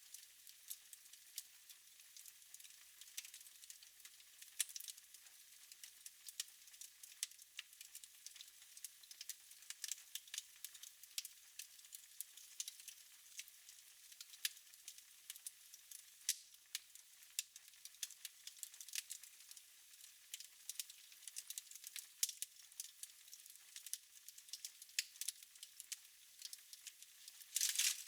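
Wood fire in a fireplace crackling: irregular sharp pops and snaps over a soft hiss, with a louder cluster of crackles near the end.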